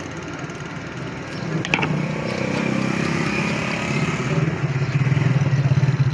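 An engine running close by, growing louder from about a second and a half in and settling into a steady low pulsing sound; a sharp click just before two seconds in.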